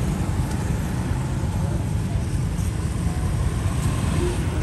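Steady low rumble of outdoor street noise with faint, indistinct voices.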